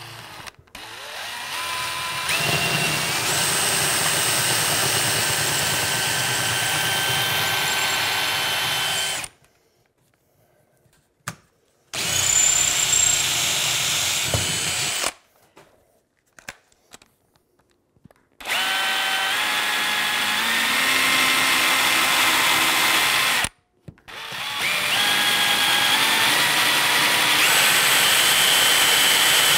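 DeWALT cordless drill boring holes through wall tile, in four runs with short pauses between them. The motor's whine steps up in pitch as it comes up to speed.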